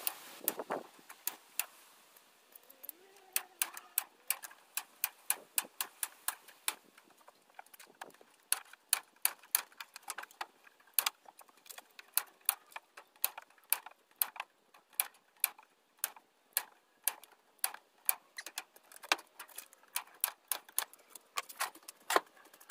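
Hand staple gun driving half-inch staples through hardware cloth into a wooden 1x2 frame: a long run of sharp snaps, sparse at first and then about two or three a second, some in quick pairs.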